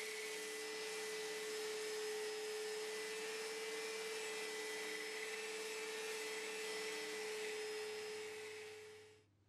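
Electric hand drill running at a steady speed as the drive of a homemade wood lathe, a steady whine over a hiss as sandpaper is held against the spinning wood. It fades out near the end.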